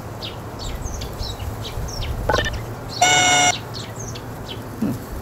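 Birds chirping with short, scattered calls. About three seconds in, a flat electronic buzzer tone lasts about half a second and is the loudest sound.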